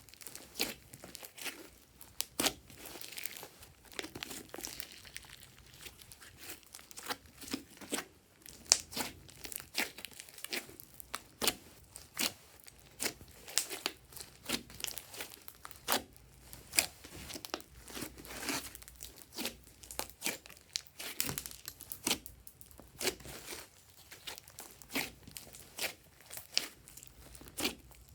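Glossy slime being kneaded and stretched by hand, giving a run of irregular sticky clicks and pops, several a second.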